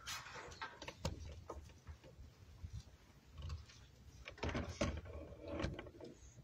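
Scattered light knocks, clicks and rustling from people moving about and handling things, busier and louder for a second or so past the middle.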